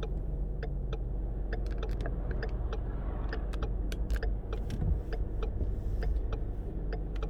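Car cabin road noise at freeway speed: a steady low rumble from the tyres and engine, with scattered faint ticks.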